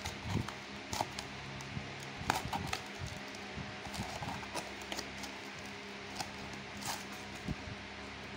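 Glass mugs being unwrapped from foam sleeves and lifted out of a cardboard box: scattered light knocks and clinks with soft rustling, at irregular moments, over a faint steady hum.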